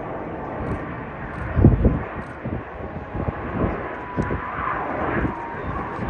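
Jet aircraft engines rushing steadily in an airshow flying display, with a few low thumps over it, the loudest about a second and a half in.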